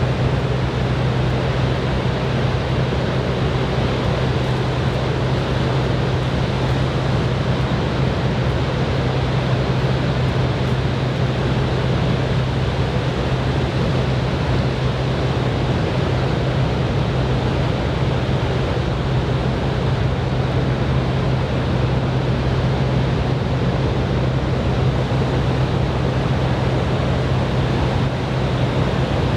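Ocean surf from a typhoon swell, a steady wash of breaking waves, with a steady low hum underneath.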